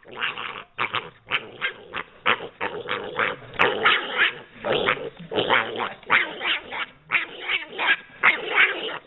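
Piglet giving rapid, harsh squealing grunts, about three a second, one after another without a break.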